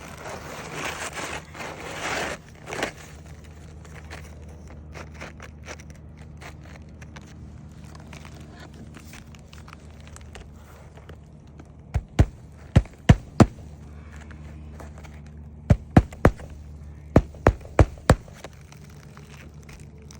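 Asphalt roofing shingle rustling and scraping as it is slid into place, then hammer blows driving roofing nails to fasten it: three quick runs of three to five sharp strikes, about three a second, in the second half.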